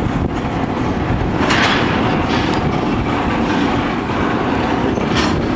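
Freight train rolling past: a steady, heavy rumble with wheels clattering over the rails.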